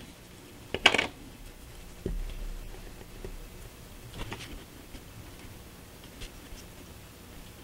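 Quiet handling of a small glass bottle and paint brush on a work mat: a sharp clink about a second in, a soft knock about two seconds in, and a few faint taps later.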